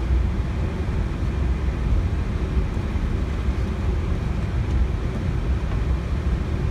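Steady low rumble inside an Airbus A321neo cockpit as the airliner taxis, with the engines at taxi power and the aircraft rolling along the taxiway.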